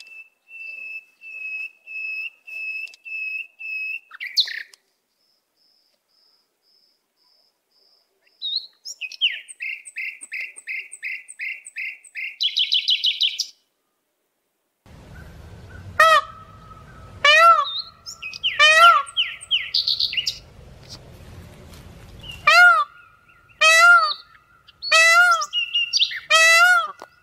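Birds calling. A series of short, evenly spaced high notes cuts off into a few seconds of complete silence. A second series follows and ends in a fast trill. Then come louder, rich arched calls repeated about once every second and a half.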